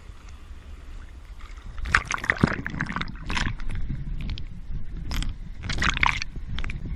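Seawater sloshing and splashing around a swimmer's GoPro as it dips below the surface. From about two seconds in comes a run of splashy surges, several a second at first and then spaced out, over a low churning rumble.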